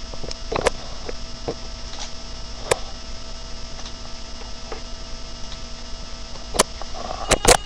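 Steady electrical hum with a few sharp clicks scattered through, the loudest pair close together near the end.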